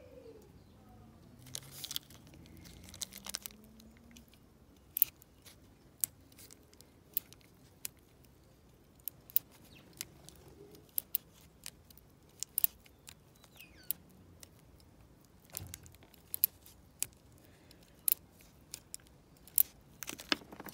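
Irregular sharp metallic clicks and taps of a thin lock-picking tool working inside a brass dimple lock cylinder, with clicks coming more closely together near the end.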